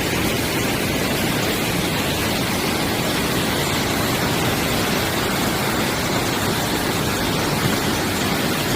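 Mountain stream rushing over rocks in a steady, loud wash of water noise.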